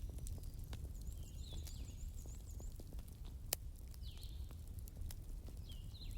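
Wood fire crackling over a low steady rumble, with scattered sharp pops and one louder pop about three and a half seconds in. Short high chirps, like small birds, repeat through it.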